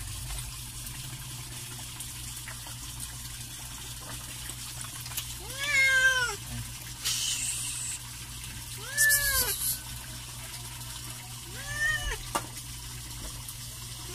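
Wet domestic cat meowing three times while being bathed, each meow rising and then falling in pitch.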